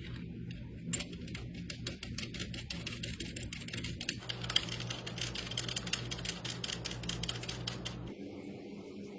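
Rapid, irregular clicking, several clicks a second, over a steady low hum.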